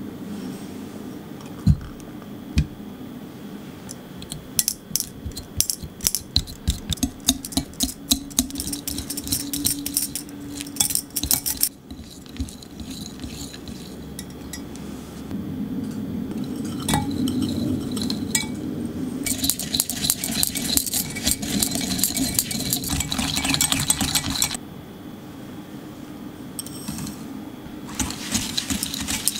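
Wire whisk beating cream cheese in a glass measuring jug, its metal tines clicking rapidly against the glass in long spells, after two sharp knocks about two seconds in.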